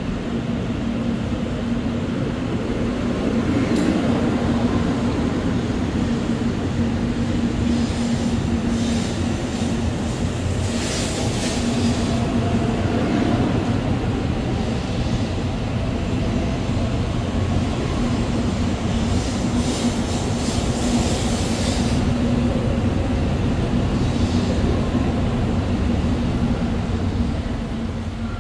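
Shinkansen train running past the platform at low speed: a steady electric hum over a rumble, with high squeals from the wheels between about 8 and 22 seconds in. The sound fades near the end.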